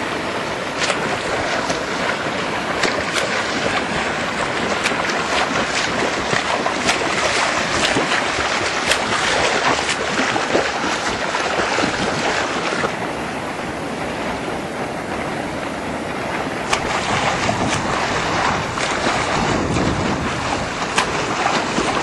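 Choppy sea water splashing and sloshing close to the microphone, with many small splashes from swimmers' arm strokes, and wind buffeting the microphone.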